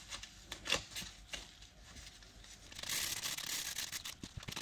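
Hands rolling small balls of soft, sticky cottage-cheese dough on a floured board. There are a few faint soft taps, then a soft rustling from about three seconds in.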